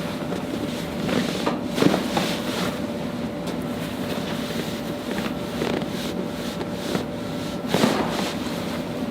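Handling sounds of a chiropractic leg pull on a treatment table: a few brief knocks and rubs, the loudest about two seconds in and again near the end, over a steady hum.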